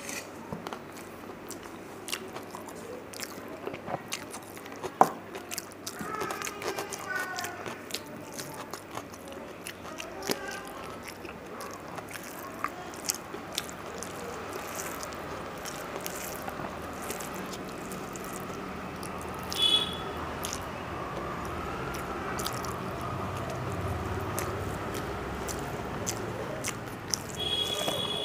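Close-miked eating sounds: a person chewing, and fingers mixing rice on a steel plate, with many scattered small clicks and one sharp click about five seconds in.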